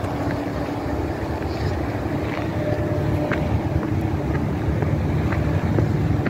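Wind buffeting the microphone of a hand-held camera: a loud, uneven low rumble, with a few light clicks scattered through it.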